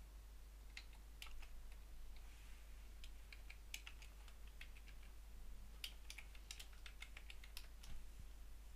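Faint typing on a computer keyboard: scattered, irregular key clicks, busiest in the middle and latter part.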